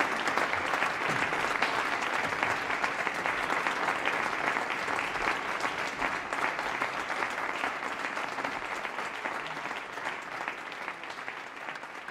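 Audience applauding, a dense steady patter of clapping that fades away near the end.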